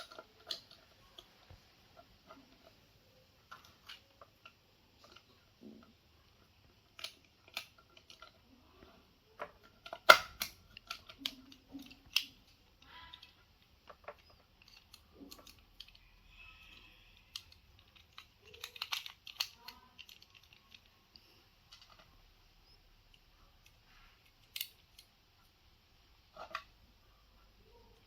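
Scattered clicks and taps of small parts of a 1970s Voltes V Crewzer-1 DX toy being handled and fitted together, with one sharp knock about ten seconds in.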